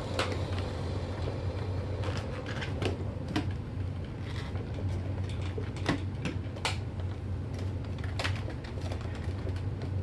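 Scattered plastic clicks and light knocks from a Hoover canister vacuum and its power nozzle being handled with the motor off, over a steady low hum.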